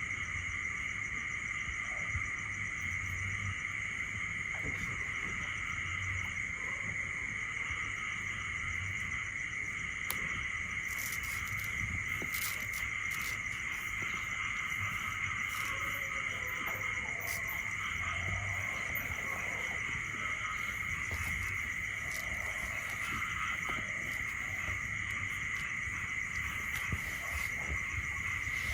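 Steady, unbroken high-pitched insect chorus, with a few faint clicks partway through.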